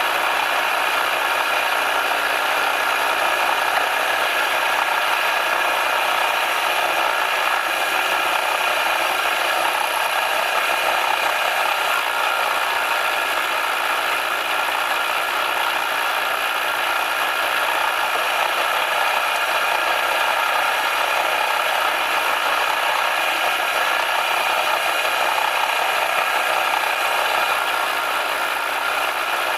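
A metalworking machine tool running steadily, with an even mechanical rattle and whir.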